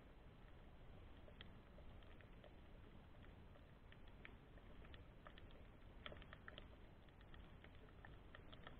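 Faint underwater ambience picked up by a submerged camera: irregular sharp clicks and crackles, a few a second and busier about six seconds in, over a low steady rumble.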